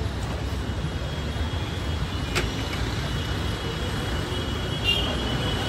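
Steady low rumble of street traffic, with faint thin high tones and a single sharp click about two and a half seconds in.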